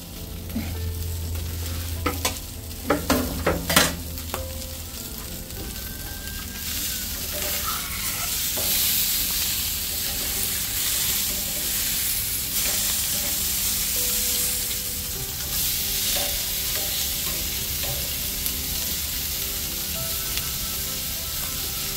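Pomfret fish and chili peppers sizzling on a gas grill, with a few sharp clacks of metal tongs about two to four seconds in. The sizzling gets louder from about six seconds on and then holds steady.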